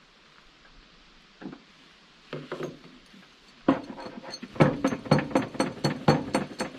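A few soft knocks, then from about halfway through a quick, even series of clinking taps, about four a second, each with a bright ringing edge.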